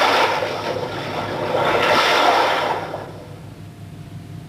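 Sea surf sound effect: rushing waves that swell once at the start and again about two seconds in, then fade away after about three seconds.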